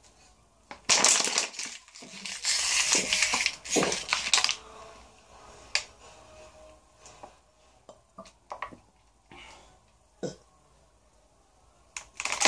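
Thin plastic water bottle crackling and crinkling as it collapses, crushed by suction while being drunk empty. It is loudest for a few seconds near the start, then gives a few scattered crackles and clicks.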